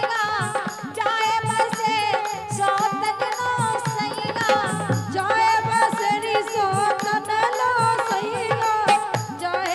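A woman sings a Rajasthani devotional bhajan into a microphone, backed by a harmonium's steady held notes and a regular hand-drum beat.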